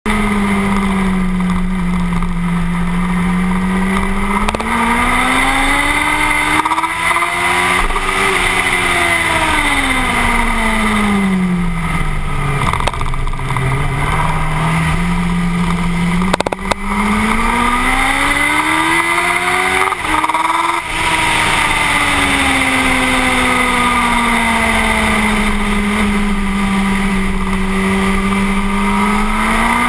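Suzuki GSX-R 1000 inline-four sport bike engine at full track pace, heard from on board over steady wind rush. The revs climb and fall twice as the bike accelerates and brakes through corners, with a couple of brief breaks in the note where the rider changes gear.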